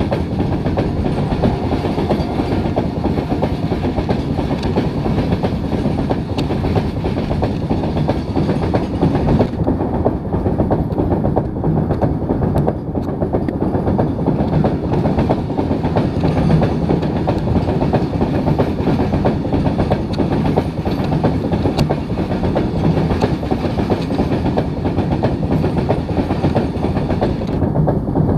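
Freight train of open-top bogie wagons passing close by: a steady loud rumble of steel wheels on the rails, with a fast, continuous clatter of the wheel sets.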